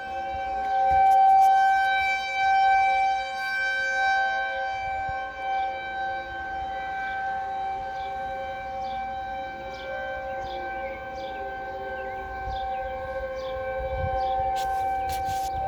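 Several outdoor warning sirens, T-128s and a 2001 DC, sounding together in a steady wail of several held tones at once, their level swelling in the first few seconds and then settling during a monthly siren test.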